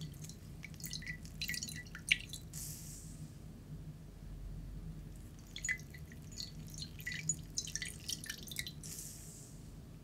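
Water dripping and splashing from a wet sponge squeezed by hand over a ceramic saucer. It comes in two spells of quick drips, the first about a second in and the second from about five and a half seconds, and each spell ends with a short hiss.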